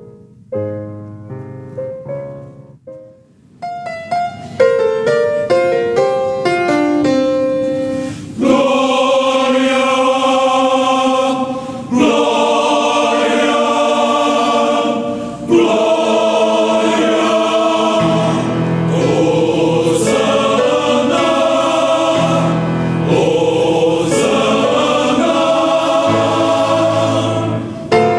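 Religious music: single piano notes climbing for the first several seconds, then a choir comes in singing sustained chords over the accompaniment.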